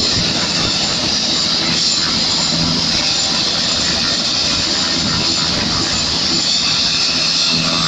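Helicopter running on the ground with its rotor turning: a loud, steady rush and whine that holds level, with no change in pitch.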